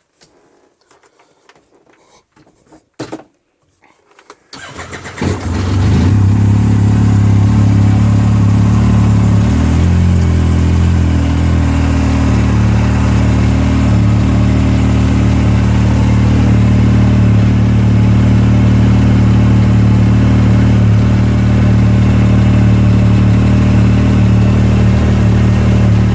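A few faint clicks, then about five seconds in the turbocharged three-cylinder engine of a 2016 Yamaha YXZ1000R side-by-side cranks briefly, catches and settles into a steady idle.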